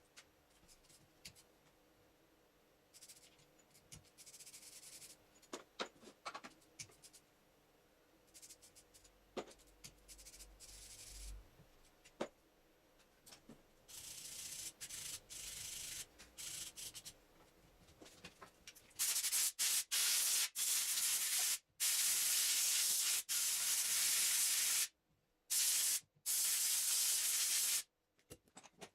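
Hands and tools working on a dismantled car alternator: small clicks and brief scrapes of parts being handled. Then, about two-thirds of the way in, a loud rasping, rushing noise comes in several long stretches that start and stop abruptly, like sanding or air blowing over the parts.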